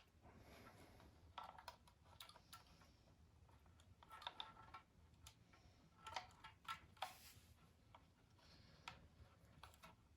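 Faint, irregular clicks and light taps of small hard objects being handled, coming in uneven clusters.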